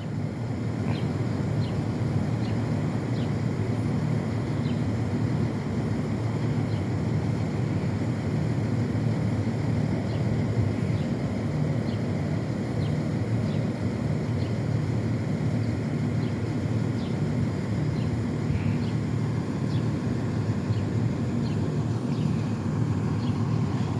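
Fire engine's diesel engine idling steadily, an even low rumble.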